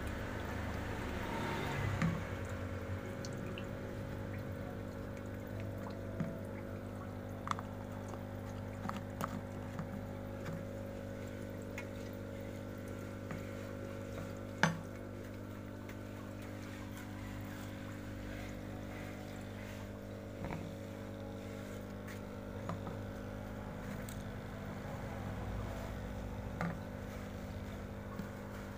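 Water in a catfish bucket bubbling and churning from air tubes, over the steady hum of an electric air pump. A few small clicks and knocks come through, one sharper knock about halfway.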